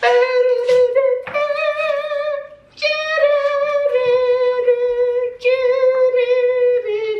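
A person singing four long, high, held notes with vibrato, separated by short breaths, the pitch sliding down near the end.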